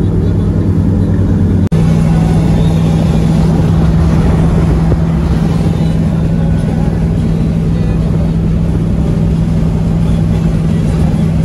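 Classic car's engine and road noise heard from inside the cabin at highway cruising speed: a steady low drone under a continuous rush of tyre and wind noise. The sound cuts out for an instant about two seconds in, then carries on the same.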